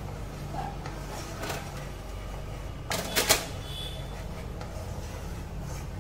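Wooden spatula stirring and scraping in a non-stick kadai of melted butter, with light clicks and a couple of sharp clacks about three seconds in, over a steady low hum.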